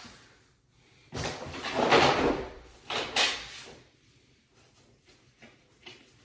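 Wooden furniture boards sliding and knocking into place during flat-pack assembly. There is a longer sliding noise about a second in and a shorter one about three seconds in.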